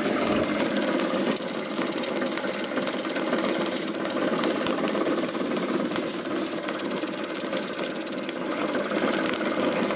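Old belt-driven air compressor running fast, its electric motor driven at 100 Hz from a variable frequency drive, with a steady rapid rattle and knock. The drive belt is out of alignment and snapping.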